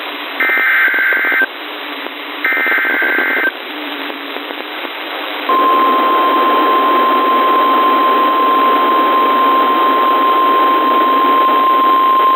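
Emergency alert data header heard over a weather radio: two warbling bursts of digital data tones, each about a second long and two seconds apart, over radio static. About five seconds in, the steady 1050 Hz NOAA Weather Radio warning alarm tone starts and holds. Together they mark the start of a new severe thunderstorm warning broadcast.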